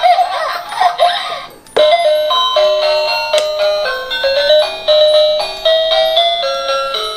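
Dickie Toys Light & Sound ice cream van's electronic sound unit: a warbling sound effect, then, from a little under two seconds in, a chiming ice-cream-van jingle of quick single notes.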